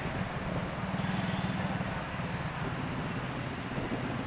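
Wind buffeting the microphone of a camera carried on a moving bicycle, a steady low, choppy rumble mixed with road noise.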